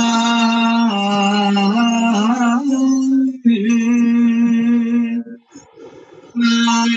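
Male voice singing a slow Ethiopian Orthodox chant in long held notes with gentle pitch turns. The singing breaks off briefly about five and a half seconds in and then resumes.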